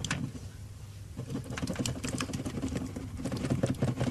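Jelly mould being shaken and knocked about on a metal tray to work the jelly loose: a quick, irregular run of clicks and taps that thickens about a second in.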